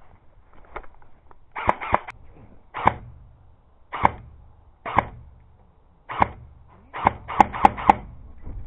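Airsoft guns firing single shots: about ten sharp pops, roughly one a second, with a quick string of four near the end.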